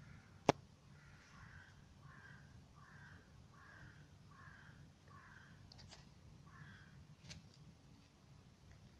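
A sharp click about half a second in, then a bird calling about seven times in an even series, roughly one call every two-thirds of a second. A few faint ticks near the end.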